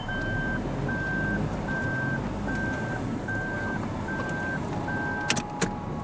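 Daihatsu Move's in-cabin warning buzzer beeping at an even pace, about one beep every 0.8 s, over the engine running at idle. The beeping stops near the end, followed by two sharp clicks. The car's electrics are cutting out while the engine keeps running, which the driver blames on the battery.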